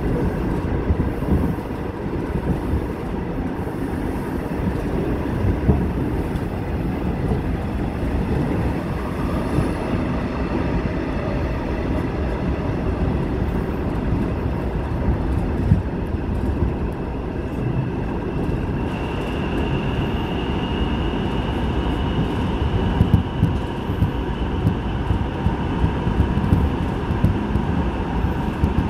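Seoul Subway Line 8 train running through a tunnel: a steady, dense rumble of wheels on rail. About two-thirds of the way through, a faint high whine rises in and holds.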